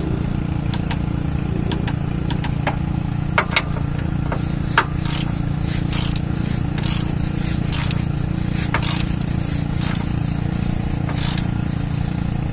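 ETOOLAB half-inch drive click torque wrench, set to 35 foot-pounds, ratcheting a bolt down with a scattered series of short clicks; the sharpest click comes about five seconds in. A steady low engine-like hum runs underneath.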